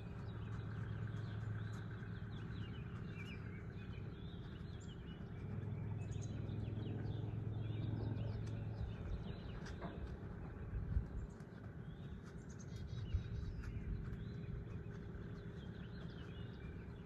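Small birds chirping and singing over a low, steady outdoor rumble, with two brief thumps partway through.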